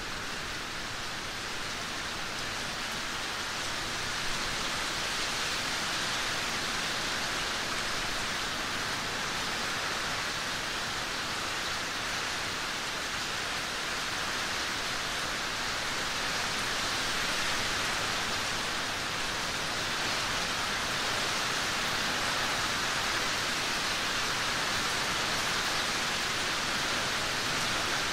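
Steady rain falling, an even hiss with no distinct drops or thunder standing out.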